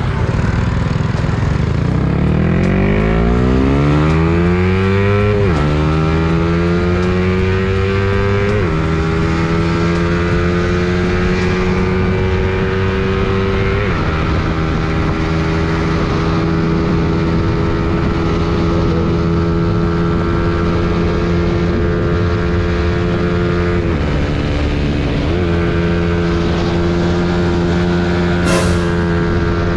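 Yamaha Sniper 150's single-cylinder engine through a racing exhaust, pulling away from a stop under hard throttle: the pitch climbs and drops at upshifts about 5, 9 and 14 seconds in, then holds nearly steady at speed, with a brief dip and recovery about 24 seconds in.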